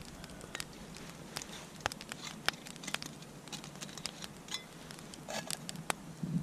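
Small wood fire in a twig stove crackling, with irregular sharp pops and ticks.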